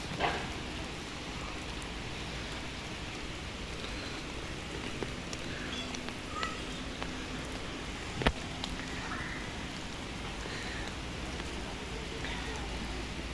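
Steady rain falling on wet paving, an even hiss, with one sharp knock about eight seconds in.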